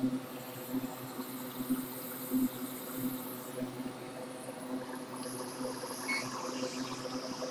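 Hot-air rework station blowing: a steady blower hum under an even rushing hiss of air, the hiss growing stronger about five seconds in as the nozzle returns over the chip. It is heating a BGA memory chip to lift it off the graphics card's board for reballing.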